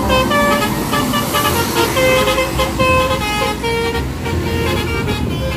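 Bus 'telolet' multi-tone musical horn playing a quick tune of short notes that change pitch, over the low rumble of the engine.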